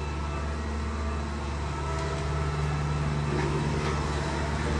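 Road roller's engine running steadily with a constant low hum.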